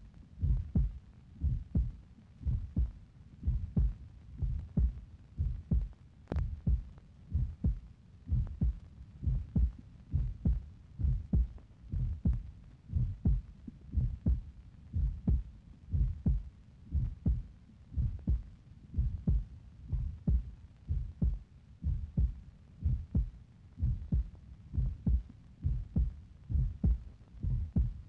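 A steady rhythm of low, doubled thumps, about one beat a second, like a heartbeat.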